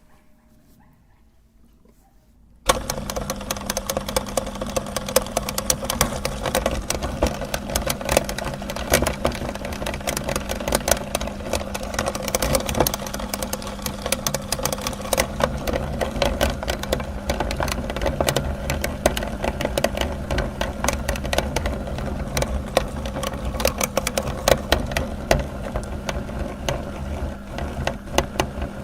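Electric meat grinder switched on about three seconds in and running steadily, a low motor hum with dense crackling and clicking over it.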